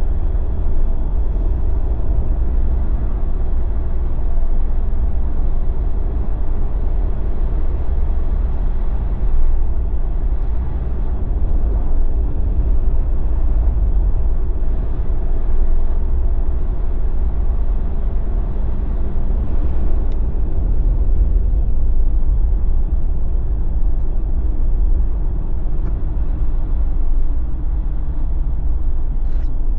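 Jeep driving at steady speed: a constant low rumble of engine and tyres on the road, without let-up.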